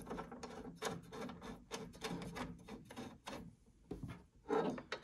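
Screws being turned in by hand to fix a metal TV mounting plate to the back of a flat-screen TV: a quick, irregular run of small metal clicks, scrapes and handling knocks against the TV's plastic back, quieter for a moment near the end.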